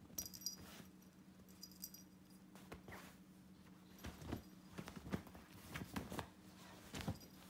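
Kittens pouncing and scrambling on a duvet after a ribbon wand toy: soft thumps and rustling of the bedding, busiest in the second half. Twice in the first two seconds comes a brief light metallic jingle.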